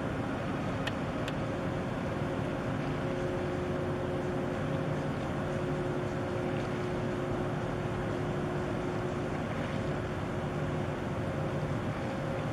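Steady low drone from the container ship Hansa Coburg under way, its engines and machinery heard across the water, with a few faint held tones in the hum.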